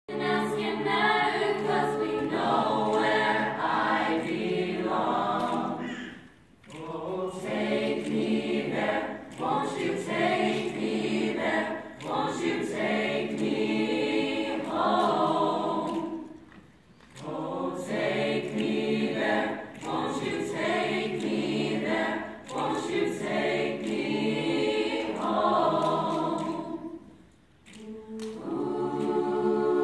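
Mixed-voice high school a cappella choir singing in harmony without instruments, in long phrases broken by short pauses about every ten seconds.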